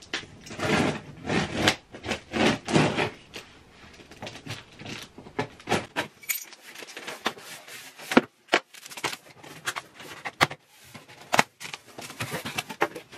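A large parcel being unpacked by hand: a few seconds of loud packaging rustle, then scattered sharp knocks and clicks as the contents are handled.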